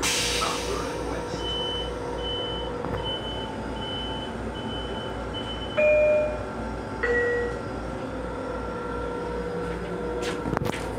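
Electronic alert inside a Metro-North M7 railcar: a short high beep repeats about seven times, roughly every 0.6 s, then a louder two-note chime falls from a higher note to a lower one. A steady low rumble of the train runs underneath, and a brief hiss comes at the very start.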